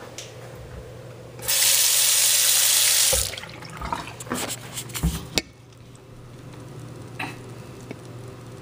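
Bathroom sink faucet turned on, water running into the basin for about two seconds before it is shut off suddenly. A few knocks and clicks follow, the sharpest about five seconds in.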